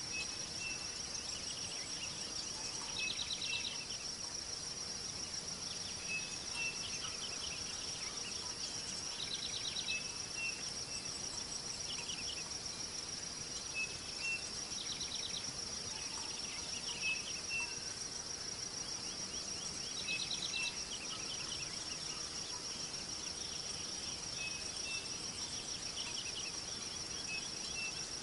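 Insect chorus: one steady, high-pitched continuous trill, with shorter pulsed chirps coming back about every three seconds, over a faint even hiss.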